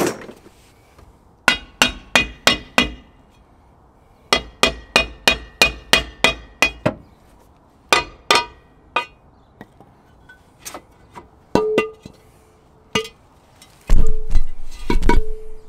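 A mallet hammering on a rusted cast-iron rear brake drum to knock it loose from the hub: quick runs of sharp metallic blows, about five a second, each with a short ring, then slower single blows. Near the end come heavier, louder clunks with a lower ring as the drum comes off.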